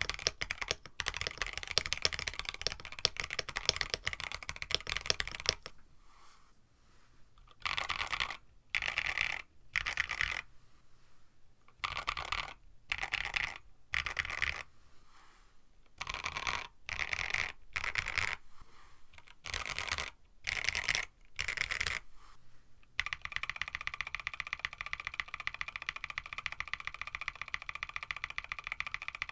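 Mechanical keyboard typing on a KBD67 Lite with an FR4 plate. Factory-lubed CJ switches type steadily for the first six seconds. Short bursts of keystrokes with pauses follow, then from about 23 s in a steady run of rapid keystrokes on stock Banana Milk long-pole switches.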